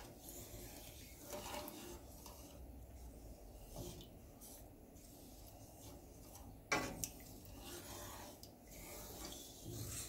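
Wooden spatula stirring and scraping through thick curry gravy in a nonstick pan, faintly, with one sharp knock about two-thirds of the way through.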